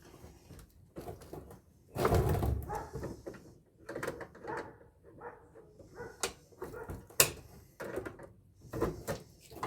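Copper pipe ends being worked and wrenched out of an air-conditioner coil: irregular metal scraping and knocking, with a louder rasping scrape about two seconds in and a few sharp clicks later on.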